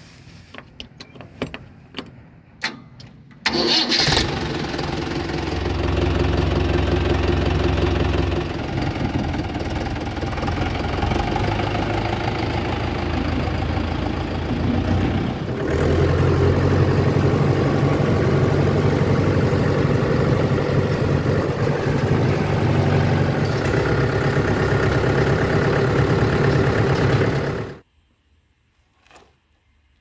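A few clicks of the ignition key, then about three and a half seconds in a Mahindra Yuvo 415 DI tractor's diesel engine is started and runs steadily, growing louder about halfway through. It stops abruptly near the end.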